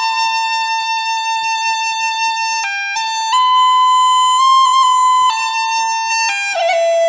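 Handmade Mada Rua pipes playing a slow lament melody: long held notes broken by quick grace-note cuts, with the tune stepping down in pitch near the end.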